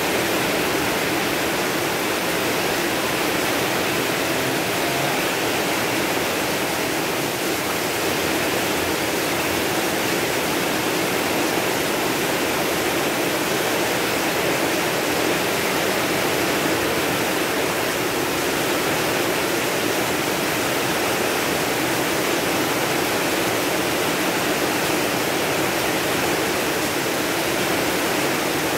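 Heavy rain pouring steadily: a constant, even hiss with no let-up.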